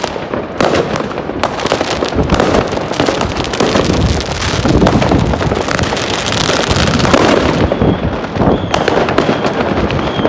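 Fireworks and firecrackers going off continuously: many bangs and crackles overlapping with no pause, with a faint high whistle a few times near the end.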